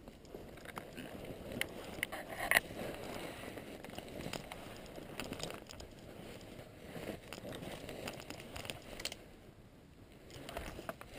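Footsteps and rustling of grass, twigs and gear as a person moves through brush, with many small snaps and one sharper crack about two and a half seconds in.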